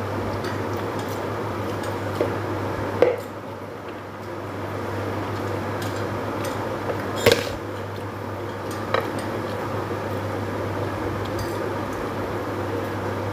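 Eating by hand from a plate: fingers mixing and squishing rice, with a few sharp clinks of dishes, the loudest about three seconds and seven seconds in. A steady low hum runs underneath.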